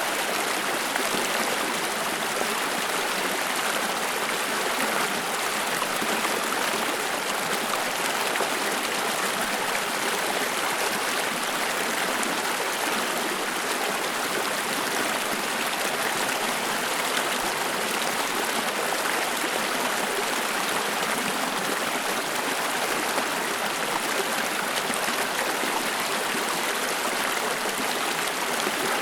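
Water of a small stream flowing over stones, a steady rushing and trickling with no breaks or changes.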